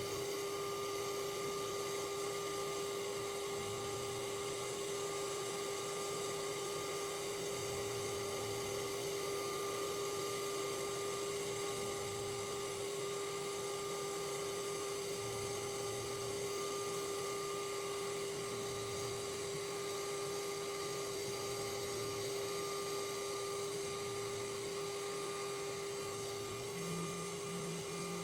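A small electric machine running at a steady, unchanging pitch, with a constant hum and a thin whine above it.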